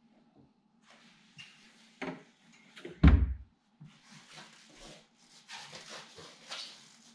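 A loud deep thump about three seconds in, among scattered short rustles and knocks.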